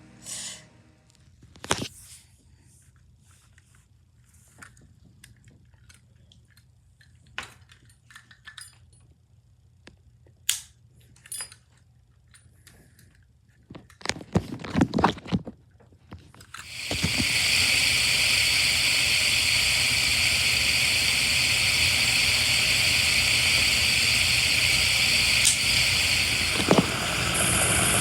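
Scattered light clicks and knocks of small objects being handled, with a short clatter of knocks a little before halfway. About 17 seconds in, a loud steady whirring noise starts and keeps going.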